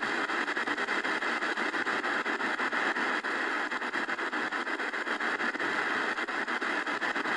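Static from an XHDATA D-901 portable shortwave radio's speaker: a steady hiss with rapid crackling clicks as the dial is tuned across a shortwave band where no station comes in.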